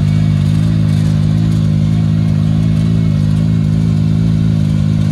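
Side-by-side UTV engine idling steadily, close and loud.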